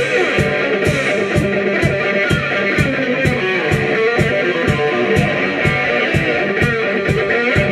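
Live blues band playing an instrumental passage: electric guitars over a drum kit keeping a steady beat of about two strokes a second.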